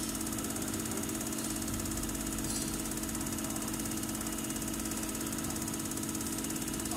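Common-rail injector test bench running steadily with its high-pressure pump at 600 rpm and 100 MPa rail pressure during a Denso injector flow test. It makes a constant machine hum with a fast, even ticking.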